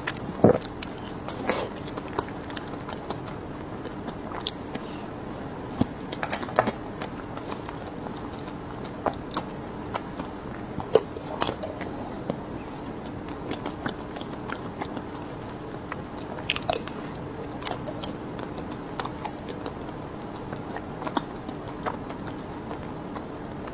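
Close-miked biting and chewing of chocolate-coated ice cream bars: sharp cracks of the hard chocolate shell breaking, the loudest about half a second in and more near the middle, with softer chewing between.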